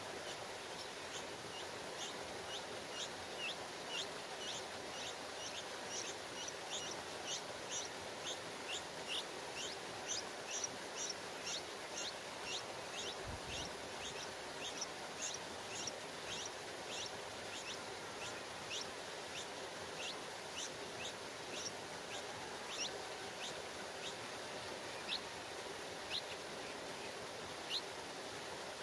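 Bulbul nestlings begging: rapid, high-pitched peeps, about two or three a second, thinning to scattered single peeps over the last several seconds, over a steady background hiss.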